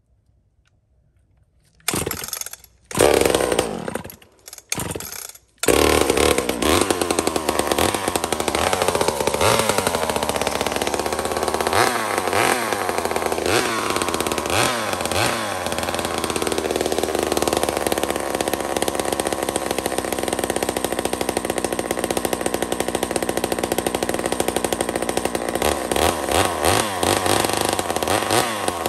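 Homelite XL76 two-stroke chainsaw being started: it fires in a few short bursts, catches about six seconds in and keeps running, with several blips of the throttle that send the engine pitch up and back down.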